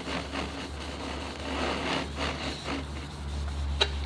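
Japanese pull saw crosscutting a hardwood board on a bench hook: a run of uneven rasping saw strokes, with a single sharp click near the end.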